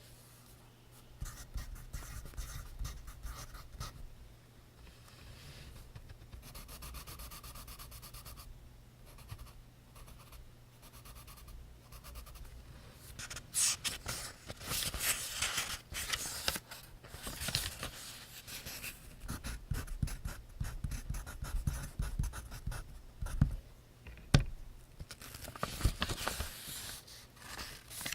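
Pencil scratching across notebook paper in quick, irregular strokes, close to the microphone, with a sharp tap near the end.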